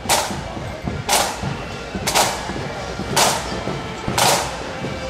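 Marching band's bass drum and cymbals striking together about once a second, keeping a steady marching beat.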